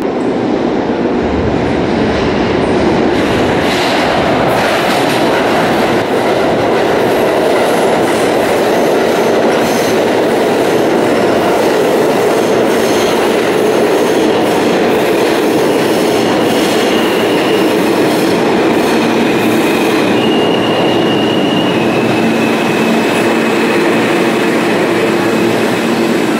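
R160 New York City subway train pulling into the station, its wheels and cars running loud and steady past the platform. High squeals come in through the second half as it brakes, and a low steady motor whine sets in near the end as it comes to a stop.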